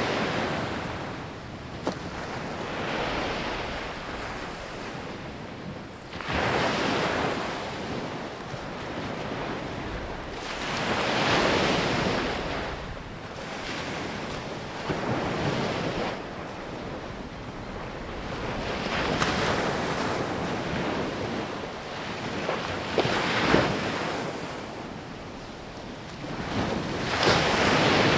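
Sea waves breaking and washing up on a sandy beach, the surf swelling and fading in surges every four or five seconds, with some wind rumbling on the microphone.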